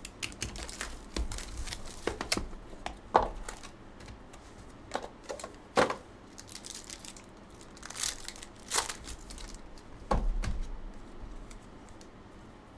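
Trading-card pack wrappers crinkling and tearing open as packs and cards are handled: a string of irregular sharp crackles, with a low knock about ten seconds in.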